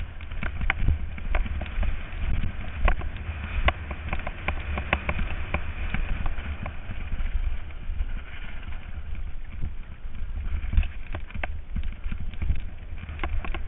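Mountain bike riding fast down a rough dirt singletrack: tyres rolling over dirt and stones, with many irregular sharp rattles and knocks from the bike over bumps, and wind buffeting the microphone throughout.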